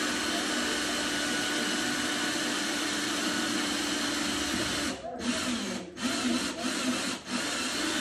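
Power drill running at a steady speed for about five seconds, then let off and restarted in short spurts four times before running steadily again.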